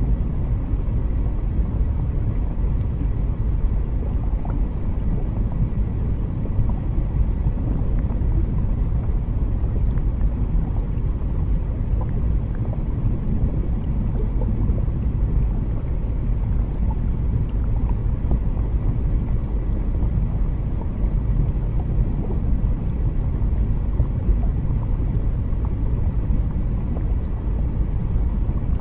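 Steady, deep underwater rumble: a continuous low noise with no breaks, and a few faint small ticks over it.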